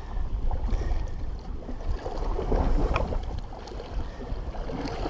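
Wind noise on the microphone, a steady low rumble, over sea water washing against the rocks.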